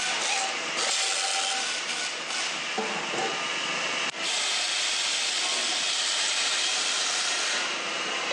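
Steady factory din: an even, loud machinery hiss, dipping sharply for a moment about four seconds in.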